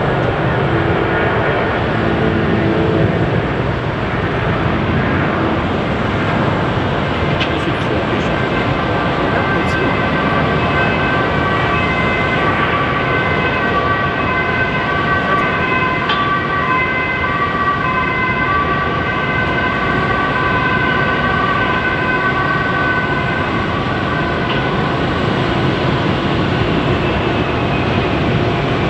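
Jet airliner engines running: a loud, steady rushing noise with several high whining tones that grow stronger through the middle and fade near the end.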